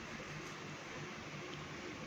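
Sliced bitter gourd frying in oil in a non-stick wok, a steady sizzle while it is stirred with a wooden spatula.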